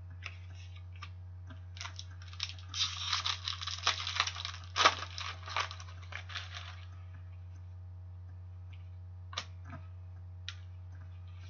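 Hockey trading cards being handled and shuffled by hand: papery rustling and sliding of card stock for several seconds, then two light clicks as cards are set down on the table.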